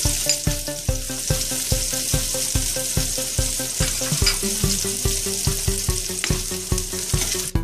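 Chopped onion and garlic sizzling in hot oil in a wok, with a ladle stirring now and then. Background music with a steady beat plays underneath.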